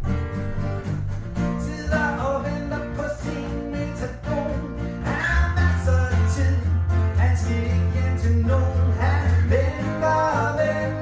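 Small acoustic band playing live: a strummed steel-string acoustic guitar with a second guitar and a bass, and a man singing from about a second and a half in. A long held bass note sounds through the middle of the stretch.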